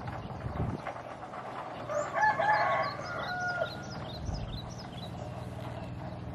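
A rooster crowing once, about two seconds in, ending on a long held note, over a low steady hum, with short high chirps alongside.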